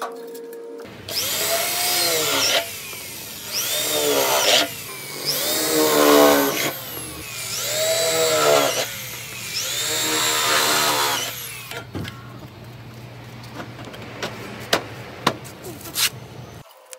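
Electric drill boring into sheet steel in five bursts, its pitch rising as it spins up and falling away as each burst ends. A few sharp taps follow near the end.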